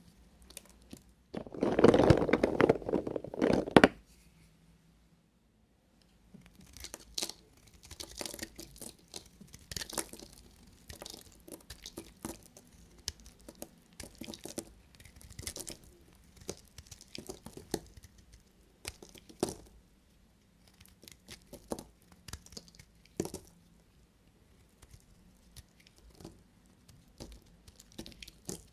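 Knife cutting through bars of soap, crisp and crackly. A dense, loud crunching stretch lasts about two and a half seconds near the start. After a short pause comes a long run of scattered small crackles and clicks.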